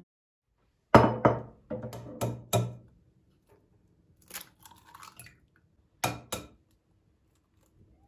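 Glass mixing bowl and eggs being handled. A quick run of four ringing knocks comes about a second in, then light clinks. Two sharp taps a little after six seconds are an egg being cracked on the bowl's rim.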